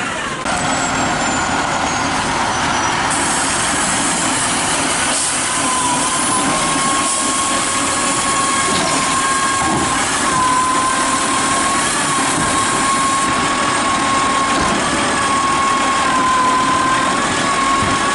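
DaDee Scorpion automated side-loader garbage truck running at low speed, its engine noise overlaid by a steady high-pitched whine.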